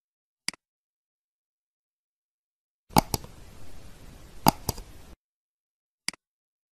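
Clicks of a computer mouse and keyboard: one sharp click about half a second in, four clicks in two quick pairs over a faint hiss around the middle, and another click near the end.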